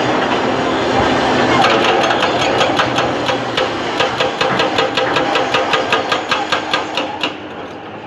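CAT D9R bulldozer's diesel engine running under load while its steel tracks clank in a fast, even rhythm, about four to five clanks a second, as it pushes broken rock; the clanking fades near the end.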